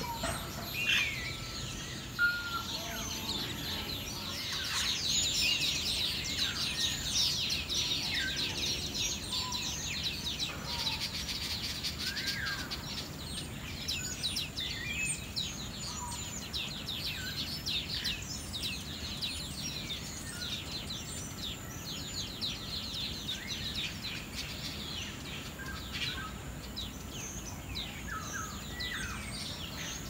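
A colony of weaver birds chattering: a dense, rapid chorus of short high chirps, busiest in the first half, with a few separate longer calls standing out over it.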